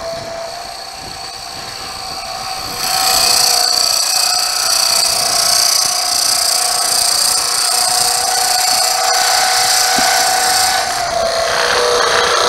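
Wood lathe running while a 5/8-inch spade bit in the tailstock drill chuck bores into a spinning mesquite blank: a steady motor hum, with a loud high hiss of the bit cutting wood that sets in about three seconds in and drops away near the end.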